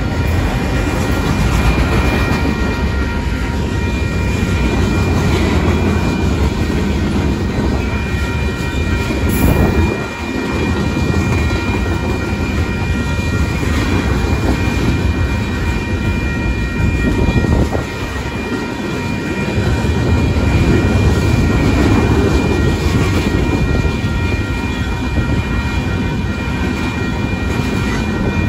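Freight cars of a mixed freight train rolling past at a grade crossing: a steady heavy rumble with wheel clatter, dipping briefly about ten and eighteen seconds in. A thin steady high ringing tone runs over it.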